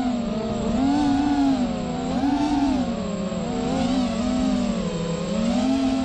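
FPV quadcopter's electric motors and propellers whining, several close pitches rising and falling together as the throttle changes, about once a second.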